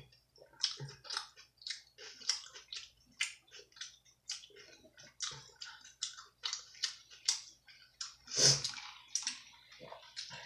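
Close-miked chewing of pizza: wet, sticky mouth smacks and clicks coming a few times a second, unevenly. One louder, fuller mouth noise about eight and a half seconds in.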